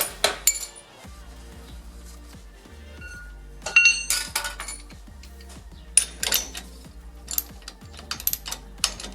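Metal hand tools and bars clinking and knocking against the pinion of a rear axle as they are handled, in several clusters of sharp clinks, the loudest about four and six seconds in, over quiet background music.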